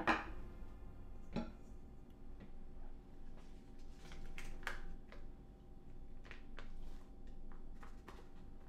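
A plastic packet of salted mozuku seaweed crinkling and rustling in the hands as it is cut open and squeezed out into a bamboo basket. Scattered light clicks and taps, with a sharp crackle right at the start and another about a second and a half in.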